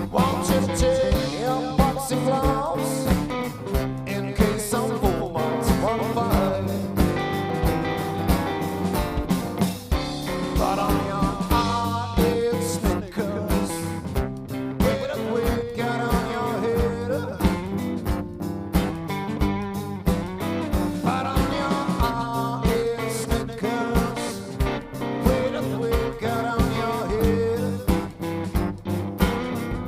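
A blues-rock trio playing an instrumental passage, with a guitar line over bass and a steady drum beat.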